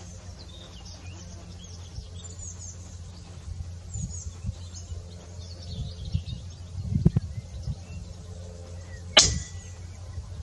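A single sharp shot from a PCP air rifle about nine seconds in, over a low steady rumble and faint bird chirps.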